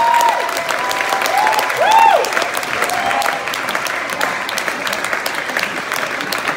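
Theatre audience applauding and cheering at the end of a rock song. Dense clapping, with several rising-and-falling whoops over it; the loudest comes about two seconds in.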